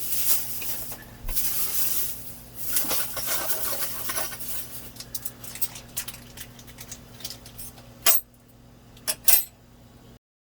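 Small metal hardware clinking and rattling as it is handled and shuffled, with a few sharp clicks near the end before the sound cuts off abruptly.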